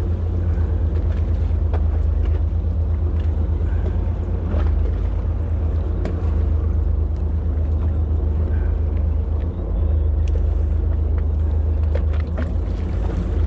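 A fishing boat's engine running steadily: a low, even hum with a fast pulse, and a few faint clicks over it.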